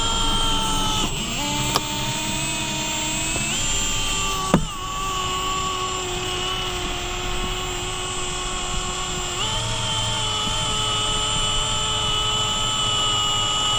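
Cordless Milwaukee Fuel drill running steadily, turning the spool of a windshield wire cut-out winder that reels in the cutting wire through the urethane to free the old glass. The whine steps to a new pitch about a second in, again at three and a half seconds and again near ten seconds, with two sharp clicks around two and four and a half seconds.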